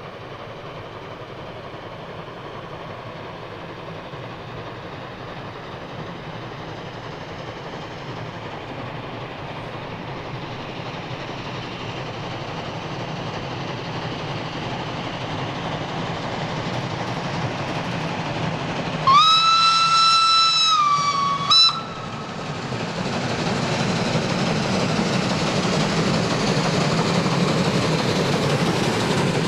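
Rack steam locomotive 97 501 working a passenger train, its running sound growing steadily louder as it approaches. About two-thirds of the way in it gives one long steam-whistle blast of about two seconds, dropping slightly in pitch at the end, then a short toot; after that the train passes close with a louder rumble of exhaust and wheels.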